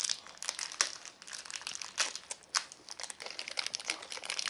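Plastic wrappers of Shopkins blind bags crinkling as the small packets are opened and unwrapped by hand, in irregular sharp crackles with a few louder snaps.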